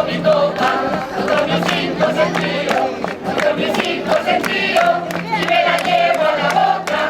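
A coro rociero singing a sevillana together, with guitar and sharp rhythmic strokes running through it.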